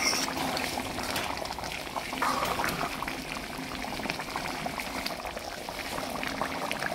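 Pork curry bubbling at a simmer in an aluminium pan, a steady wet bubbling with many small pops, with now and then the light scrape of a steel ladle stirring through it.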